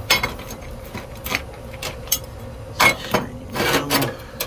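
A series of short metallic clicks and knocks from handling a bent sheet-metal patch panel against the rusty steel cab floor, with the loudest knocks about three and four seconds in.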